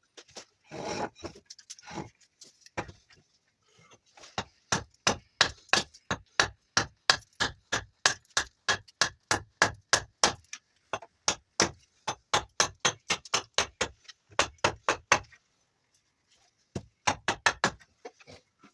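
Small axe hewing juniper wood in quick, light, evenly spaced strokes, about three a second, in two long runs with a brief pause between them, then a short fast flurry near the end. A short scraping rustle comes about a second in.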